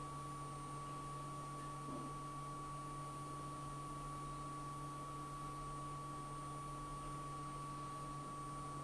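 Steady background hum with a thin, constant high tone over faint hiss. There is no distinct event.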